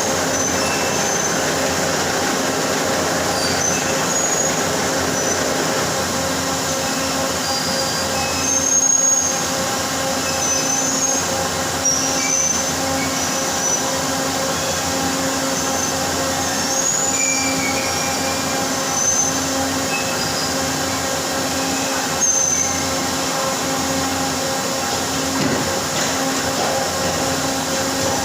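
Machinery in a CNC machine shop running steadily: a dense hum with steady tones, a low tone pulsing evenly about once every second and a half, and short high squeals scattered throughout.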